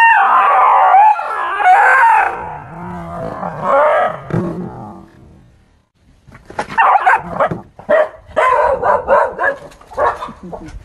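Dog crying out in loud, wavering yelps and howls for about five seconds as a stuffed toy tiger is pushed at it. After a short pause comes a quick run of short barks.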